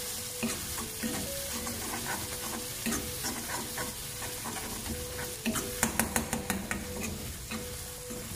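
Tomato-onion masala sizzling in a black karahi on a gas burner while a metal spoon stirs it, scraping and tapping against the pan, with a quick run of sharp taps about six seconds in. The masala is being fried until the tomatoes break down.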